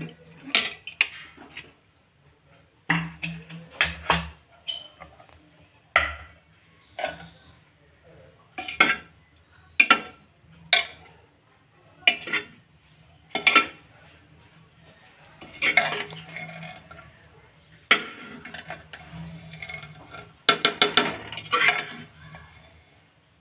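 Metal ladle stirring cooked moong dal with spinach in a pressure cooker, clinking and scraping against the pot's sides in a series of sharp strokes roughly a second apart, with longer runs of scraping in the second half.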